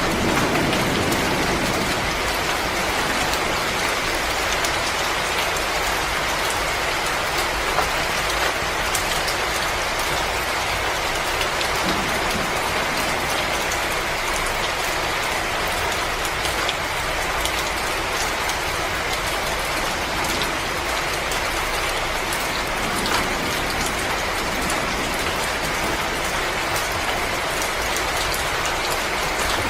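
Wood fire crackling steadily: a dense hiss full of fine pops, with a few sharper snaps, and a low rumble that fades out in the first couple of seconds.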